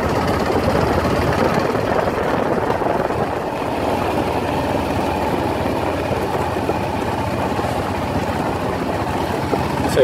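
Yamaha XT660's single-cylinder engine running steadily as the motorcycle rides along a loose gravel road, heard from the rider's position with rushing wind noise mixed in.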